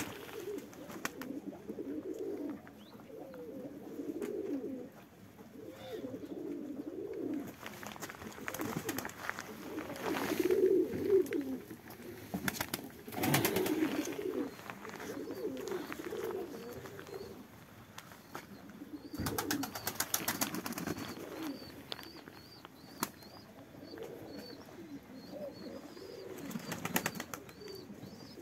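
Domestic pigeons cooing over one another, with a few brief bursts of wing flapping and a run of faint high chirps in the last third.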